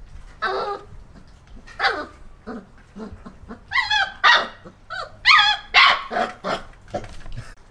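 German wirehaired pointer puppies, about four weeks old, play-fighting with a run of short, high-pitched puppy barks and yips. The calls come every half second or so and are loudest about four to six seconds in.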